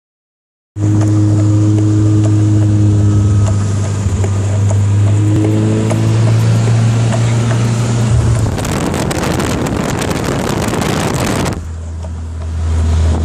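Westfield Sport Turbo's turbocharged Vauxhall four-cylinder engine running steadily under way, heard from the open cockpit. About eight seconds in a loud rushing hiss of wind and rain swamps it for about three seconds, then the engine comes back at a lower, quieter note.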